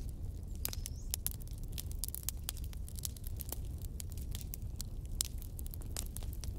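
Outdoor ambience: a steady low rumble with many irregular sharp clicks and crackles, and one brief high rising chirp about a second in.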